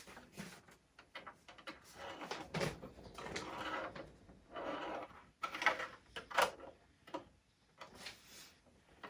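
Plastic toy parts and packaging being handled: scattered small clicks and knocks with several short rustles and scrapes.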